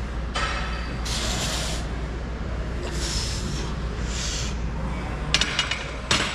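Sharp hissing breaths pushed out in time with the reps of a barbell bench press, about one a second. About five seconds in, the loaded barbell is racked on the bench's steel uprights with two metallic clanks that ring briefly, over the low hum of the gym.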